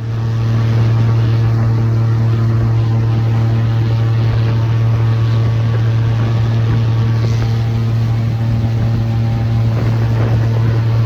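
Airboat's engine and propeller running steadily at speed: a loud, even drone that starts abruptly and holds one pitch.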